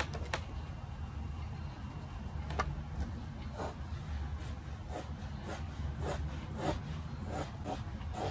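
Graphite pencil scratching on paper in short sketching strokes, about two a second in the second half, with a couple of sharp ticks earlier, over a steady low hum.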